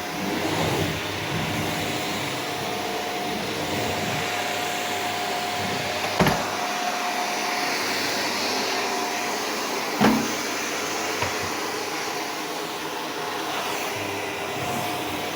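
Shark Powered Lift-Away corded upright vacuum cleaner running steadily while vacuuming, a hum with a faint steady tone in it. Two sharp knocks come about six and ten seconds in.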